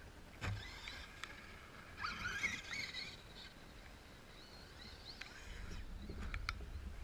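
Radio-controlled monster truck landing a jump with a thud about half a second in, then its motor whining as the throttle is blipped up and down. Low wind rumble on the microphone near the end.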